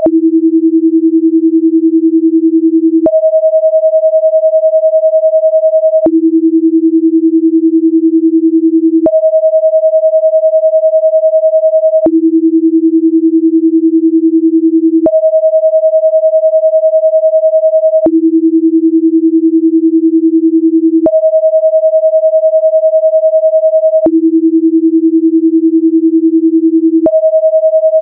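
Synthetic sine tones for a 10 Hz frequency-following response, with the left and right channels 10 Hz apart (a binaural beat). The steady tone switches every three seconds between a higher pitch and one about an octave lower, with a faint click at each change.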